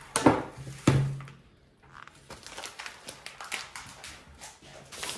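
Two sharp knocks in the first second, then a silicone pastry brush swept over a bare aluminium baking tray in soft scratchy strokes as melted butter is spread over it.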